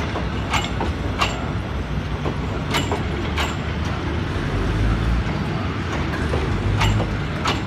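Passenger coaches of a departing express train rolling slowly past, a steady low rumble broken by sharp clicks in pairs as the wheels cross the rail joints, three pairs in all.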